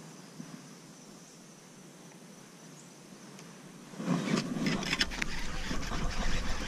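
A faint, steady insect buzz, then from about four seconds in loud rustling and rumbling with a quick run of clicks: handling noise and wind on the camera microphone as the baitcasting reel and rod are worked up close.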